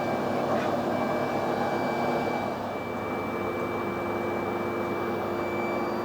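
Metal lathe running steadily while screw-cutting a 1.75 mm pitch thread: a steady mechanical hum with a thin, high, steady whine over it.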